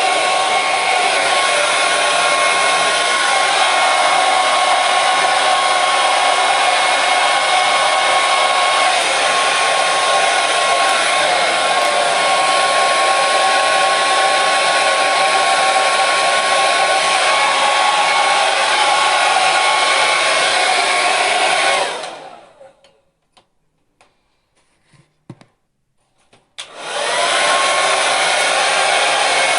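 Hair dryer running steadily, a loud even blowing hiss with a thin high whine. Near the end it is switched off and winds down, a few faint clicks sound in the quiet gap, and a few seconds later it is switched on again and spins back up.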